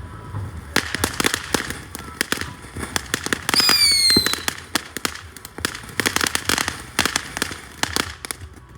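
Fireworks going off: a quick run of sharp pops and crackles, with a whistling firework whose pitch falls over about a second midway through.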